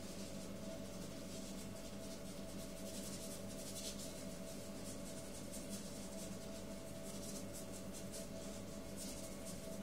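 Paintbrush scrubbing and dabbing on paper in quick, scratchy strokes that come in runs with short pauses. A steady low hum runs underneath.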